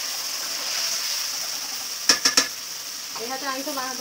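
Steel spatula clinking sharply against steel dishes three times in quick succession, just after two seconds in, over a steady high hiss.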